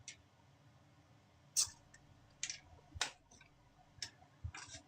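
Scattered light clicks and taps of small objects being handled, about six sharp ones spread over the few seconds with quiet between.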